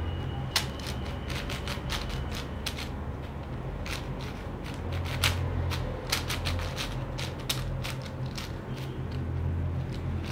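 A stickerless MoYu MeiLong 5x5 speed cube being turned by hand: a rapid, irregular run of plastic clicks and clacks as its layers snap round.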